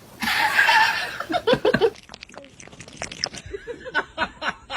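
People laughing in short choppy bursts.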